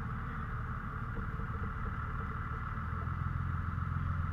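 A motor running steadily: a low hum with a higher whine over it.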